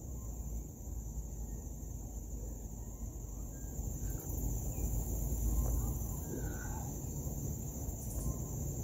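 Outdoor ambience: a steady low rumble, a steady high insect drone, and a few faint bird calls.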